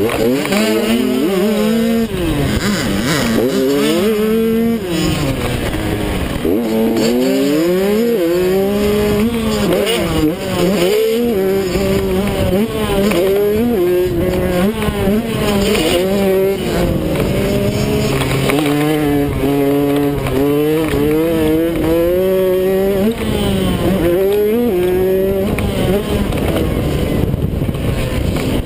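Kawasaki KX85 two-stroke single-cylinder engine racing hard, its pitch climbing and dropping again and again as the throttle is opened and shut through the track's straights and turns.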